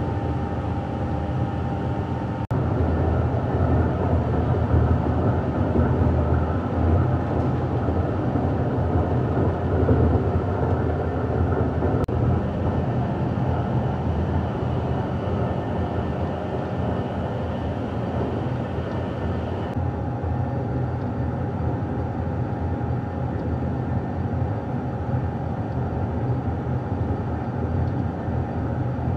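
Plastic recycling extruder line running: a steady low hum with a dense mechanical rumble. The mix changes slightly about two and a half seconds in, and again near the middle and about two-thirds of the way through.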